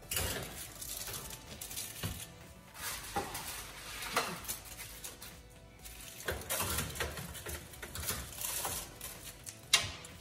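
Foil-lined metal baking trays being slid into a wall oven, scraping and clattering on its wire racks, with a sharp knock near the end.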